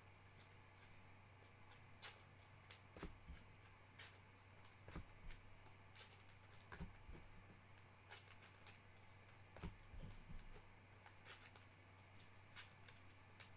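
Faint, irregular clicks and light rustles of trading cards and their packaging being handled on a table.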